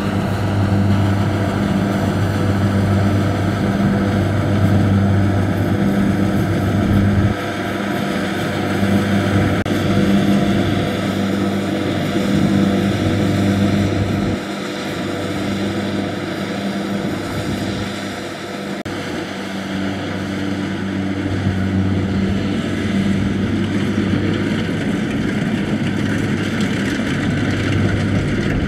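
Diesel engine of a crawler rice combine harvester running steadily under load while it cuts and threshes, a constant engine drone. The sound drops in level about 7 and 14 seconds in.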